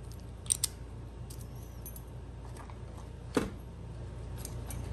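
Metal padlocks being handled: two quick clicks about half a second in and a sharper knock near three and a half seconds, over a steady low hum.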